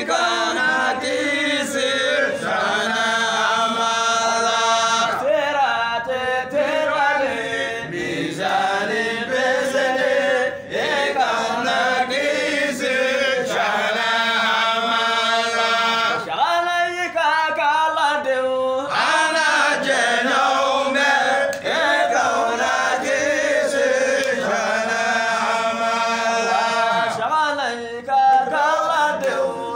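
Men's voices chanting a Sufi devotional chant together, holding long notes and pausing briefly between phrases.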